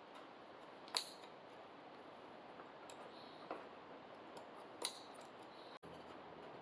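Small hand-tool and parts clicks from work on a motorcycle's tail wiring: two sharp snips or clicks about four seconds apart, with a softer one between them.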